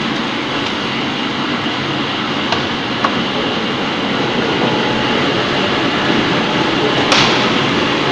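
MAXIA MX-LP220 industrial washer-peeler running with a steady churning rumble as cassava roots tumble inside it. A few sharp knocks come through, the loudest near the end.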